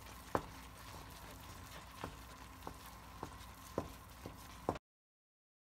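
Wooden spatula stirring a thick flaxseed and khoya mixture in a pan, knocking against the pan with a faint tap about every half second over a low hiss. The sound cuts off abruptly near the end.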